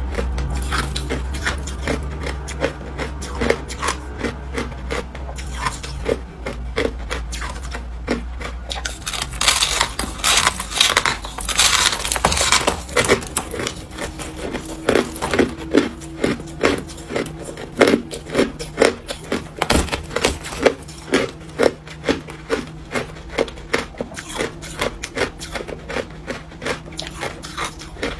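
Hard frozen crushed ice being bitten and chewed: a run of sharp crunches, coming steadily about twice a second in the second half, with a scratchy rasping stretch about a third of the way through.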